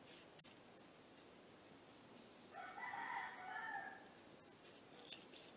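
A rooster crows once in the background, one call of about a second and a half starting about two and a half seconds in. Short scratchy clicks of a metal blade cutting sprouts off a potato come near the start and again near the end.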